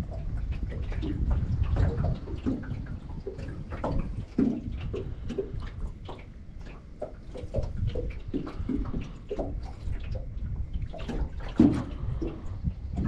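Small waves lapping and splashing in irregular slaps, over a steady low wind rumble on the microphone.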